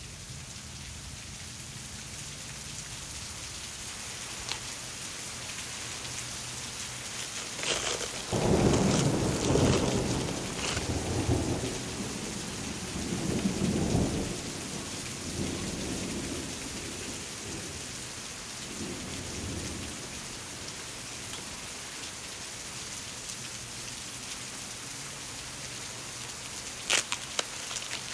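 Steady rain with a long rolling rumble of thunder that swells several times from about a third of the way in to past the middle. A few sharp clicks near the end.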